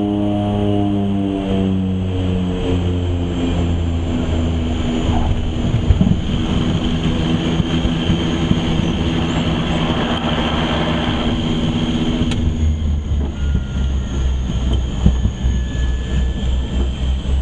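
A DHC-6 Twin Otter's turboprop engines and propellers, heard in the cockpit, as a steady drone whose pitch slowly sinks as power comes back on landing. A thump about six seconds in marks the touchdown. A swelling propeller roar follows as the power levers are pulled into reverse, then a lower, uneven rumble as the aircraft slows on the runway.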